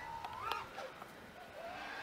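FPV freestyle quadcopter's brushless motors and propellers whining in flight, the pitch rising and falling with the throttle.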